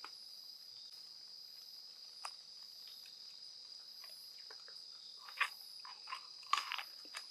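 Crickets chirping steadily in a continuous high-pitched drone. A few short, sharp clicks and crunches stand out over it, once about two seconds in and several times near the end.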